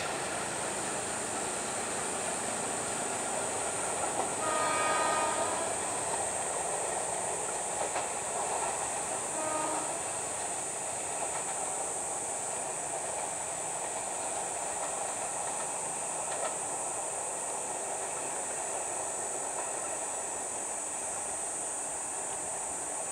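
KRL Commuter Line electric train running away along the track, its rumble slowly easing. A short horn sounds about four and a half seconds in, over a steady high whine.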